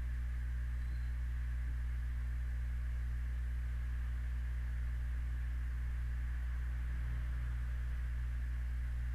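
A steady low electrical hum with a faint hiss over it, unchanging throughout.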